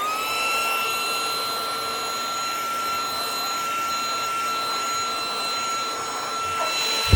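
eufy HomeVac H11 cordless handheld vacuum running, its motor reaching full speed right at the start and then holding a steady high whine over a rushing hiss. A brief, louder low rumble comes in at the very end.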